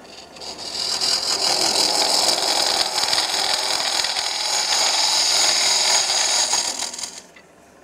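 A freshly sharpened spindle gouge cuts into the end grain inside a wooden canister blank spinning on a wood lathe, hollowing it out. It makes a steady hissing cut that builds up over the first second and stops about seven seconds in.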